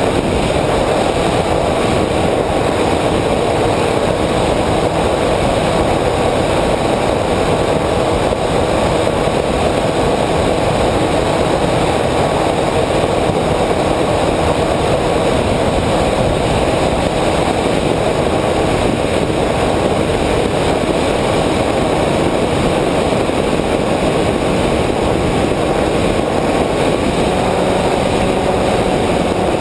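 A flying wing's motor and propeller running steadily in cruise, mixed with rushing wind noise, heard from a camera on board the aircraft. The drone's pitch shifts slightly near the end.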